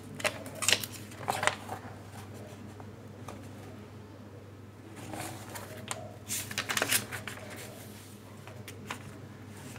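Paper pages of a printed booklet being handled and turned, rustling in two bursts, the first about half a second to a second and a half in, the second from about five to seven seconds in, over a low steady hum.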